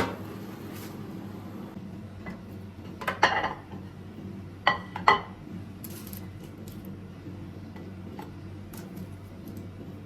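Dishes and utensils being handled in a kitchen: a sharp clink at the start, a short rattling clatter about three seconds in and two quick clinks about five seconds in, over a steady low hum.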